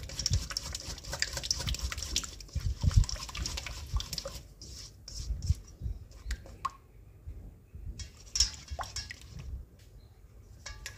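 Silicone spatula stirring a thick, wet flour-and-coconut-milk batter in a stainless steel bowl: irregular wet stirring and scraping with small clicks and soft knocks against the bowl.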